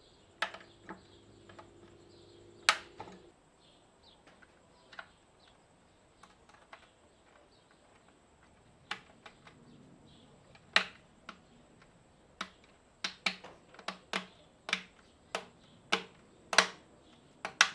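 Sharp plastic clicks and taps as new swirl flap assemblies are pressed and seated into the ports of a plastic Ford Duratec HE intake manifold. A few scattered clicks come at first, then many in quick succession over the last several seconds.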